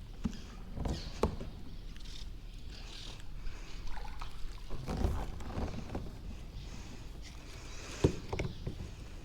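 Kayak on the water: a few sharp knocks on the hull, the loudest about eight seconds in, with water sloshing and a steady low rumble underneath.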